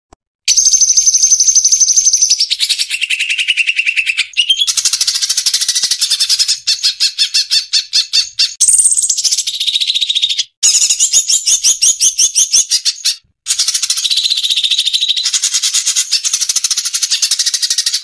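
Small songbirds giving fast, high-pitched chattering trills and rapid-fire repeated notes, spliced together in blocks that switch abruptly from one song to the next, with two brief gaps in the second half.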